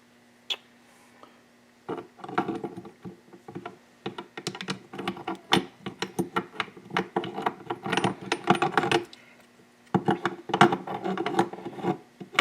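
Metal engine parts clinking and tapping against each other and the aluminium crankcase as the shift drum and its parts are worked into a Yamaha WR426F's bottom end. There is a single click about half a second in, then busy, irregular clinking from about two seconds in, with a short pause about nine seconds in.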